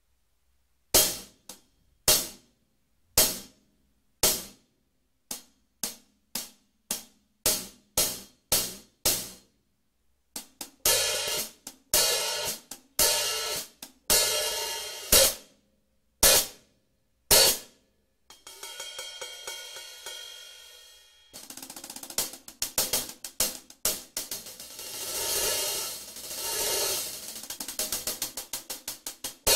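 Basileia Heritage 14-inch hi-hat cymbals played with sticks. It opens with separate strikes that die away quickly, then longer, washier strokes. Past the middle comes a single long ringing wash that fades, and the end is a fast, even run of strokes that swells and eases.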